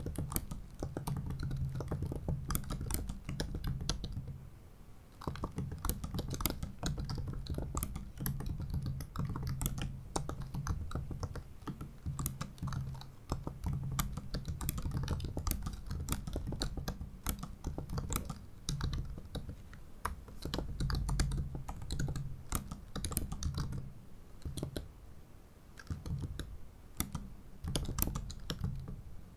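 Typing on the MacBook Pro 15-inch (2017) built-in butterfly keyboard: a fast, irregular stream of short, shallow key clicks, with brief pauses about five seconds in and again about twenty-five seconds in.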